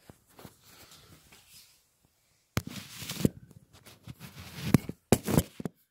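Handling noise from a phone being gripped, moved and set down on the floor: irregular rustling, rubbing and sharp knocks against the microphone. The loudest knocks come in the second half.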